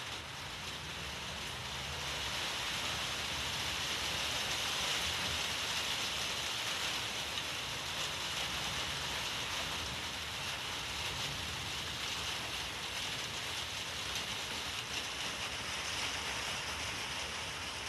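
Steady hiss of falling rain, growing a little louder a couple of seconds in and then holding even, with no thunder.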